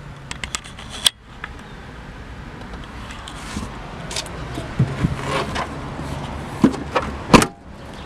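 Scattered clicks and knocks, then a loud, heavy slam near the end: the rear liftgate of a 2006 Jeep Commander being shut.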